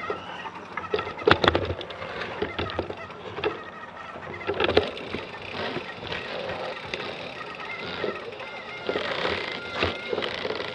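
Mountain bikes being pushed up a dirt trail: footsteps on dirt and the rattle and clunk of the bikes, with a few sharp knocks, the loudest about a second and a half in.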